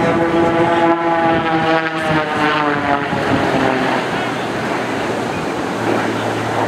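Extra 300 aerobatic plane's piston engine and propeller droning, the pitch falling steadily over the first three seconds, with heavy wind buffeting on the microphone.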